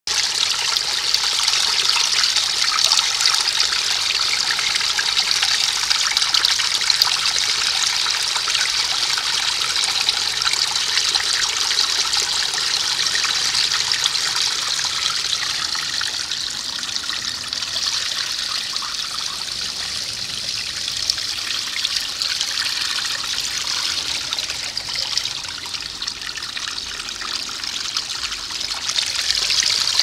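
Small, shallow rocky stream trickling and splashing steadily over stones and around bare feet and a hand held in the current. It is a little softer in the second half.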